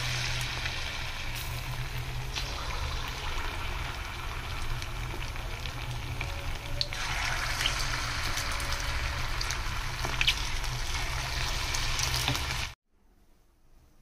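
Potato-and-rice pakoras deep-frying in hot oil, a steady sizzle full of small crackles and pops; it cuts off suddenly near the end.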